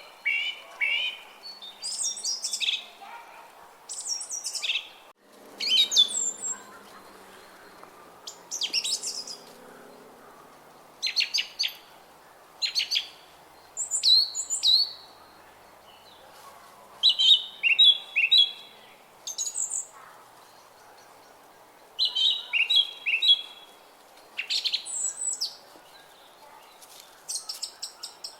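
Several songbirds singing in short, repeated chirping phrases every second or two, over a faint steady background hiss.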